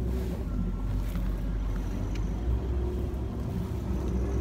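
An engine running steadily at low speed, a continuous low hum, with wind noise on the microphone.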